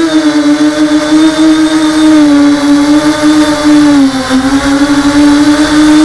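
ZMR hexacopter's brushless motors and propellers buzzing steadily in flight, heard loud and close from the onboard camera. The pitch wavers with throttle, dipping about four seconds in and then climbing back.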